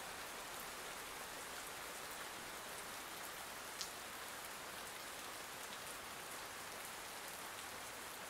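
Soft, steady rain falling, an even hiss throughout, with one faint tick about four seconds in.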